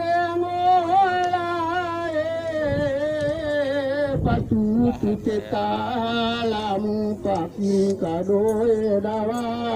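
Unaccompanied chanting in long, held, wavering notes: one high phrase for about four seconds, then a lower line that carries on with short breaks.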